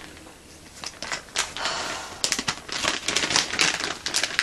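Plastic packaging (a zip-top bag and the bubble wrap in the box) crinkling and rustling as it is handled: irregular crackles, busiest after the first second.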